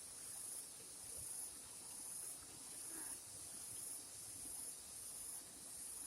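An insect calling: a high-pitched buzz that swells and fades in a steady rhythm, a little more than once a second.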